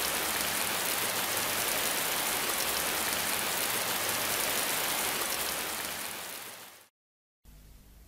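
Heavy rain, a dense steady hiss, fading out near the end into a brief silence.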